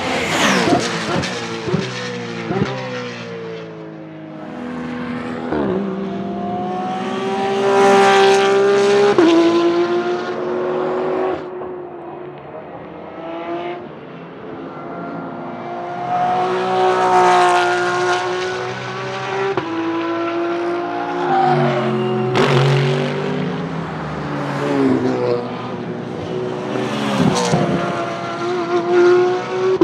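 Porsche 991.2 GT3 R race cars' naturally aspirated flat-six engines running hard on track and passing several times. Each pass rises and falls in pitch, and gear changes show as sudden steps in the engine note.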